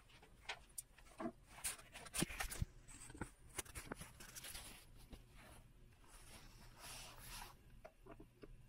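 Hands handling small electronic parts and their packaging: a run of light clicks and taps, with a longer scraping rustle about three to five seconds in and again near seven seconds.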